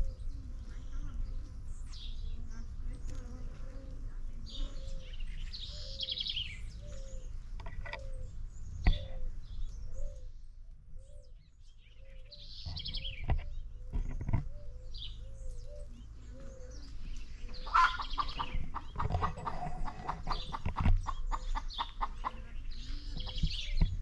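Birds calling outdoors: a short low call repeated steadily about once a second, higher chirps on and off, and a stretch of rapid chattering calls about three quarters of the way in. A low rumble of wind on the microphone runs under it, with a few sharp knocks.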